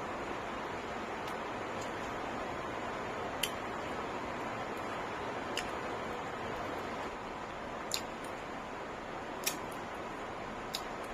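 Eating sounds: five short, sharp clicks a second or two apart, over a steady background hiss.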